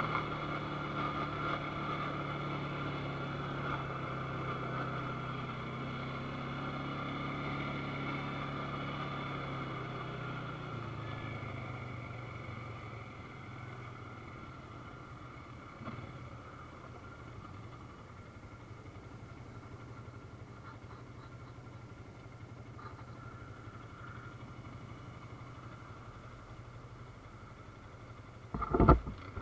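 ATV engine running steadily, then easing off about ten seconds in to a lower, quieter hum that holds. A sharp thump near the end.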